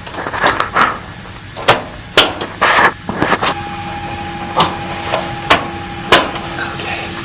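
Sharp knocks and clicks of washer parts being handled and fitted back together, about five loud ones among lighter clatter. A steady hum starts about halfway through.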